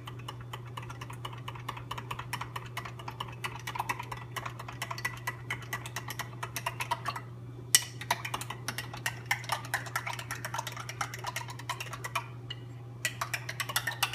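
A utensil stirring a wet mix of almond milk, pumpkin purée and spices in a container: fast, even clicking and scraping against the sides. It pauses briefly about halfway and again near the end, and there is one sharper clink just after halfway. A steady low hum runs underneath.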